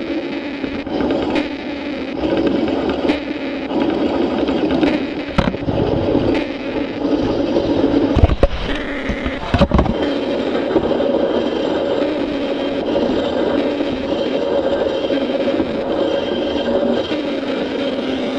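Large-scale model train of an Aster Union Pacific Challenger and boxcars rolling along the track, heard from a camera riding on the train: a steady rolling rumble with scattered clicks and a few heavier knocks about eight to ten seconds in.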